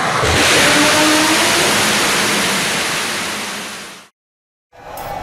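BPM5 rocket engine firing on a test stand: a loud, steady rushing roar with a few faint whistling tones. It fades out about four seconds in, then a brief silence, and music begins near the end.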